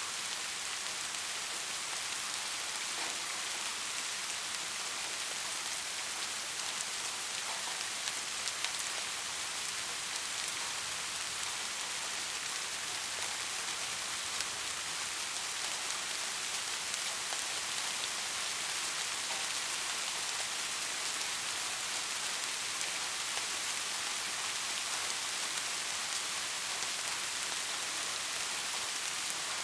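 Steady soft rain falling, an even hiss with scattered individual drop ticks.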